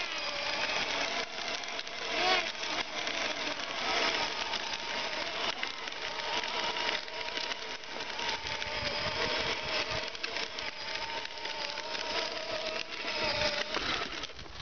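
Battery-powered children's ride-on toy motorcycle running: its small electric gear motor whines steadily, pitch wavering a little, over the noise of its plastic wheels rolling across cracked asphalt.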